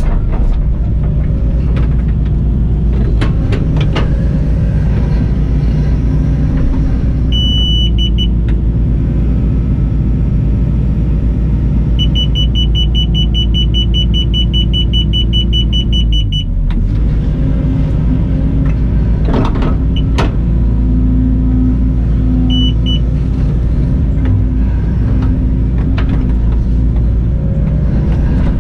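Hitachi ZX120 excavator's diesel engine and hydraulics running steadily under load, heard from inside the cab, with a few knocks from the bucket and boom working. Short runs of high beeps from the iDig machine-control system sound through it: a fast series of beeps in the middle, and brief ones before and after. These are its grade-guidance tones.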